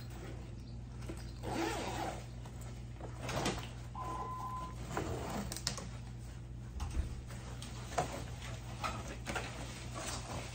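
Rustling and handling of school supplies and their bags as a plastic binder is pulled out, with scattered small clicks and knocks over a steady low hum.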